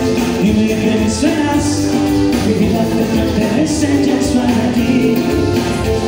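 Loud music with singing, a melody over a full band, with occasional cymbal-like hits.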